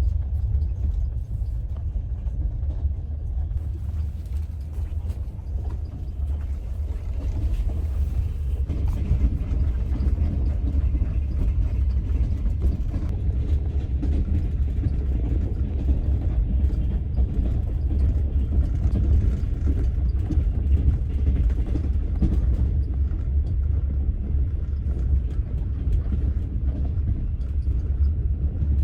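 Passenger train in motion: a steady low rumble.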